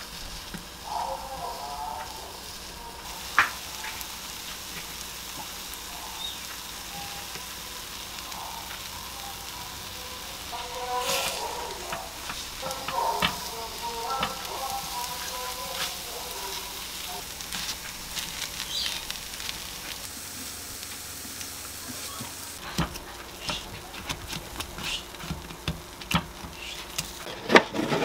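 Takoyaki batter sizzling in a cast-iron takoyaki pan over a gas flame, with occasional light taps of wooden skewers as the balls are turned. Towards the end, a run of sharp clicks and rustles as packaging is handled.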